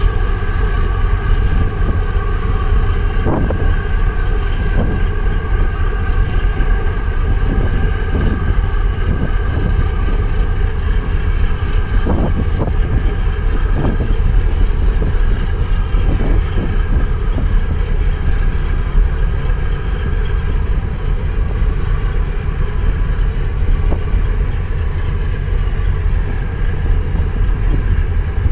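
Steady drone of a boat's engine heard from on board, a constant low rumble with a steady whine above it, while wind buffets the microphone.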